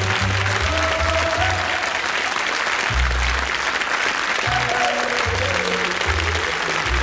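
Sitcom closing theme music with a melody over a run of bass notes, played over a studio audience's applause.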